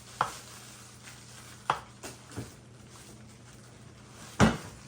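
Stainless steel kitchen knife cutting through a potato, four strokes each ending in a sharp knock, the last one the loudest.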